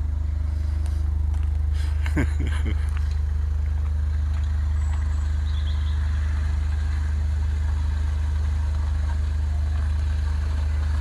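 An engine running steadily at idle: a constant low drone that does not rise or fall.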